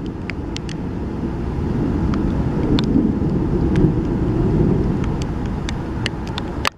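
A low rumble that swells over a few seconds and then eases, with scattered sharp ticks over it; it drops away suddenly near the end.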